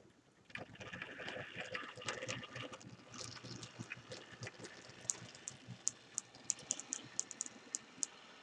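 HO-scale model locomotive running on the track, its motor and gears whirring and rattling, starting about half a second in. Sharp irregular clicks of the wheels over rail joints and a switch join in from about halfway through.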